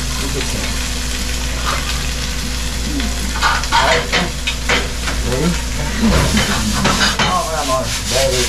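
Food sizzling in a frying pan on a gas burner, with repeated scraping and clicking as it is stirred with chopsticks and a spatula against the pan.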